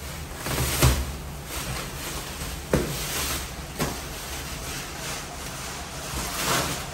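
Cardboard and plastic packing being torn and pulled off a wrapped piece of furniture: steady rustling and crinkling, with a few sharp snaps or knocks about a second, three and four seconds in, and a louder swell of crinkling near the end.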